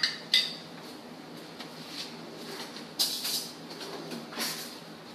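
Kitchen items being handled: a sharp clink right at the start and another a moment later, then two short rustling, scraping noises about three seconds and four and a half seconds in.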